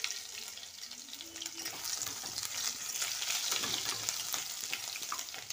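Garlic pieces frying in hot oil in a kadai with a tempering of cumin seeds, dried red chilli and a bay leaf: a steady sizzle with fine crackling, the pan being stirred with a spatula.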